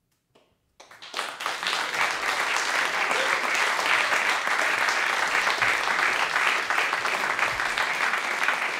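Audience applause: after a moment of near silence, clapping breaks out about a second in, builds quickly and holds steady.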